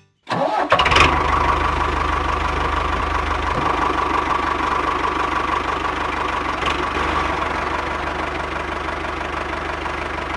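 Small single-cylinder diesel engine of a walking tractor, starting with a burst about half a second in and then running steadily with a fast, even knock.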